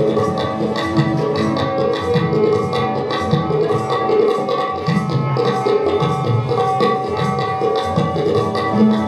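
Indian devotional instrumental music: tabla playing a quick steady rhythm under the held tones of a melodic instrument.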